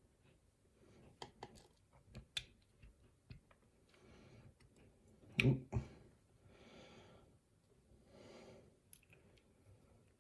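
Faint small clicks and taps of lock parts and tools being handled while a lock is taken apart, with one louder knock about five and a half seconds in. Soft breathing twice in the second half.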